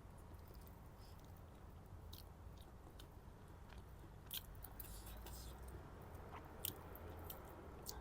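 Faint chewing of a mouthful of chicken biryani, with scattered short mouth clicks, the sharpest about four and a half and six and a half seconds in.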